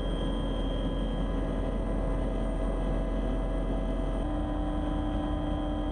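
Steady drone of an aircraft in flight, heard from on board, with a few steady hum tones. One of the tones steps up slightly in pitch about four seconds in.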